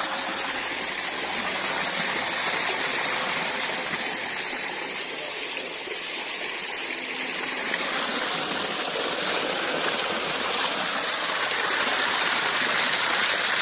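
Rushing water, a steady unbroken rush like a fast mountain stream or cascade.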